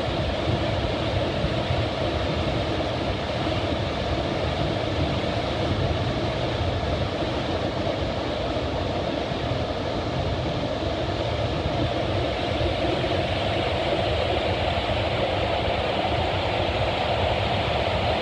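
Fukiware Falls, a waterfall, rushing steadily: a loud, even noise with no breaks.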